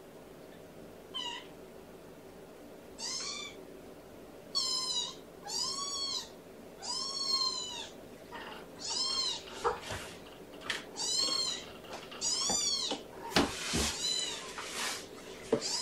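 Young kitten mewing over and over, about ten high-pitched calls roughly a second apart, each rising and then falling in pitch.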